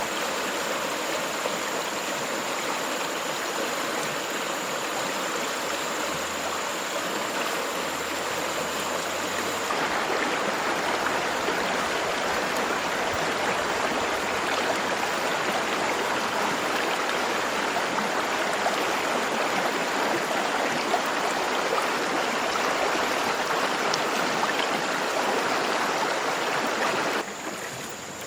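Steady rush of running water, like a stream. It gets louder about ten seconds in and drops off abruptly just before the end. A faint, thin, high-pitched whine sits under it at first and again at the very end.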